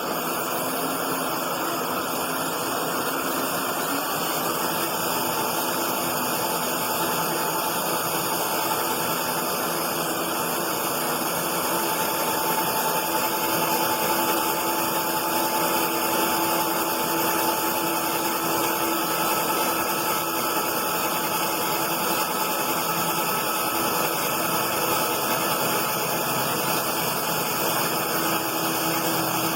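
Steady machine running noise with a few faint whining tones over it, unbroken throughout.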